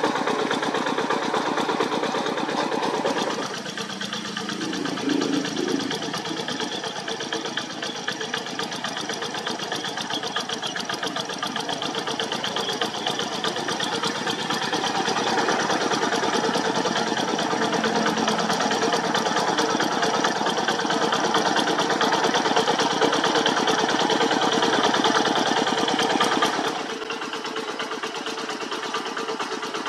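Diesel two-wheel hand tractor engine running steadily with a rapid firing beat as it works the soil. Its level drops a few seconds in, builds back up, and drops again near the end.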